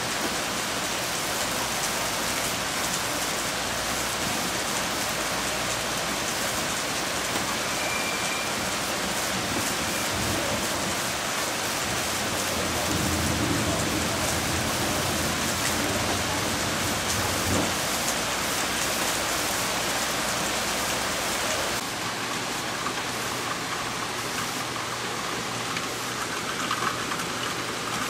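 Heavy hurricane rain pouring down as a steady, dense hiss. For several seconds about halfway through, a low rumble rises under it.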